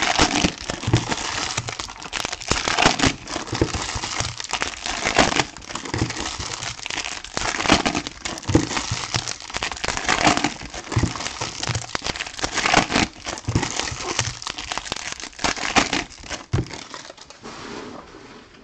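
Crinkling and rustling of foil trading-card pack wrappers being handled and opened by hand. It is a dense, uneven run of crackly rustles that eases off near the end.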